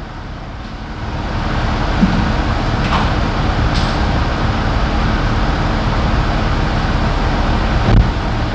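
2011 Nissan Murano's 3.5-litre V6 engine running steadily at idle with the AC on, swelling a little about a second in; a brief thump near the end.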